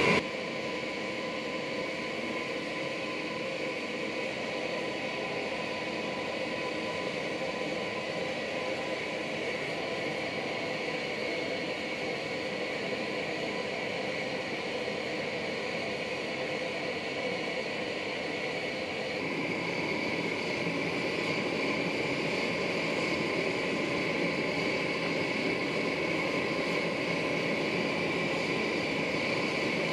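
Propane forge burner running with a steady roar while it brings a steel billet up to forge-welding heat. It gets a little louder about two-thirds of the way through.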